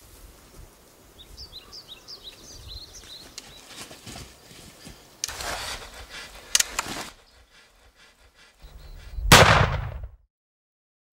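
Birds chirping, then a few sharp clicks as a rifle is readied, and about nine seconds in a single rifle shot, the loudest sound, dying away within a second.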